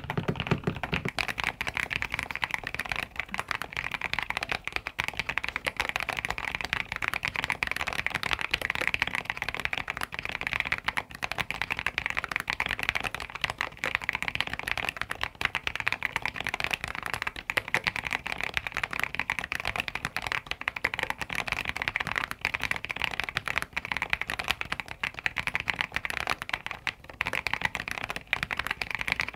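Fast, continuous typing on mechanical keyboards. For about the first second the strokes are deeper-sounding, typed on a dark 75% board. The rest is on a compact board with cream keycaps, whose key strokes are brighter and higher-pitched.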